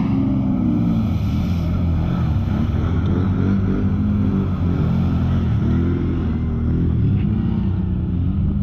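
ATV (quad bike) engines revving as the quads drive through water and mud, the pitch rising and falling with the throttle. The sound is loud and close.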